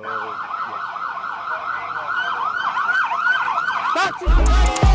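Police car siren on a fast yelp, its pitch sweeping up and down about three times a second. A loud low rumble cuts in near the end.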